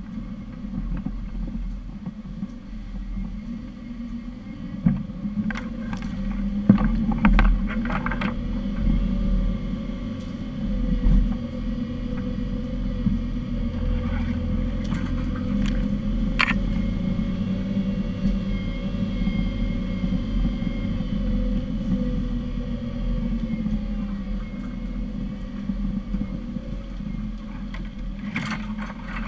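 Off-road 4x4's engine running steadily at low revs, heard from inside the cab. Scattered knocks and rattles come through as the body jolts over rough ground.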